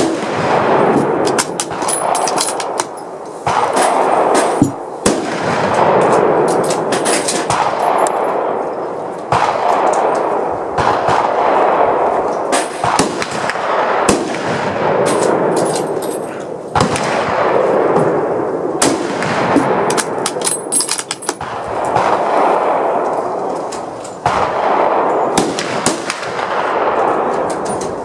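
Rifle fire on a firing line, with many shots from several rifles, some close together and some overlapping, each followed by a long echoing tail. Among them is an Eddystone M1917 Enfield, a .30-06 bolt-action rifle.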